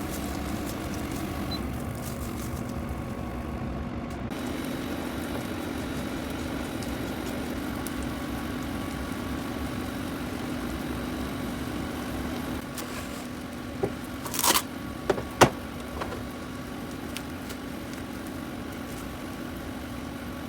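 A steady mechanical hum, with a few sharp clicks and knocks about two thirds of the way through.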